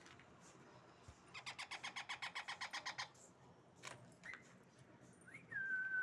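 Baby parakeets calling in a rapid harsh chatter of about eight calls a second, lasting under two seconds. Near the end comes one clear, steady whistled note, the loudest sound.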